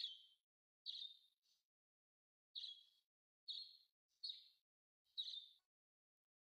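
A series of short, high, bird-like chirps, about one a second, each fading quickly.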